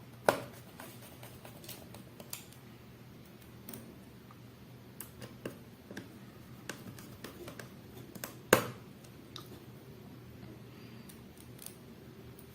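Small scattered clicks and ticks of screws being driven with a screwdriver to fasten a laptop SSD in place, with two sharper knocks, one just after the start and one about eight and a half seconds in.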